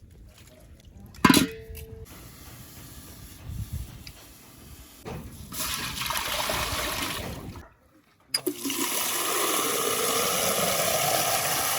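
Water pouring or running in two spells: a strong steady rush that stops briefly and then starts again. A sharp knock comes about a second in.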